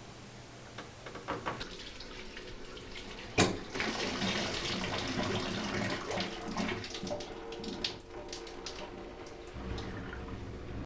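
A sharp knock about three seconds in, then water running from a bathtub tap, turned on at the tub's single-handle chrome valve, with small splashes and drips throughout.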